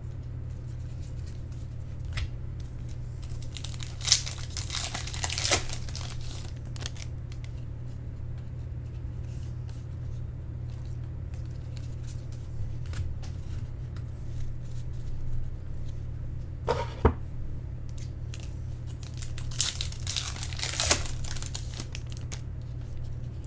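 Baseball card packs being torn open and their foil wrappers crinkled by hand, in two bouts, over a steady low electrical hum.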